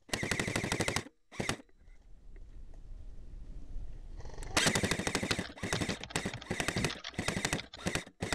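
Airsoft guns firing full-auto bursts of rapid mechanical shots. There is a long burst and a short one, a gap of about three seconds, then a quick string of bursts.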